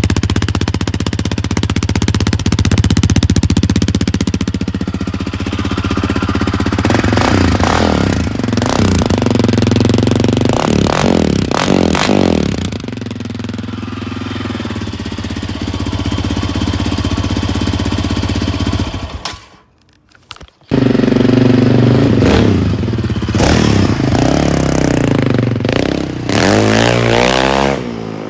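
Yamaha Raptor 700R's single-cylinder four-stroke engine through an HMF Competition slip-on exhaust, idling and revved in repeated quick throttle blips. The sound breaks off for about a second two-thirds through, then the idle and blips resume.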